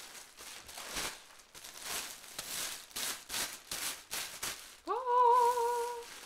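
Clear plastic bag and bubble wrap crinkling and rustling as a guitar neck is pulled out of them. About five seconds in, a man's voice slides up into a long held "ooh", louder than the crinkling.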